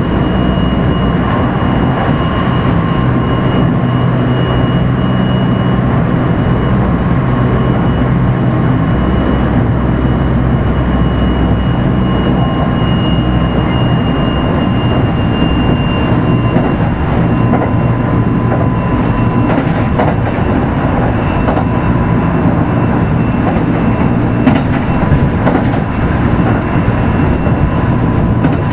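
Onboard running sound of a Kintetsu 5200 series electric train, heard inside motor car Mo 5253: a steady rumble of wheels on rail with a thin high whine over it, and a few rail-joint clicks in the later part.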